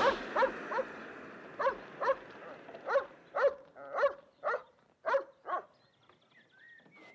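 A dog barking repeatedly, about two barks a second, a dozen or so in all. Under the first barks, the hissing fizz of firework rockets dies away.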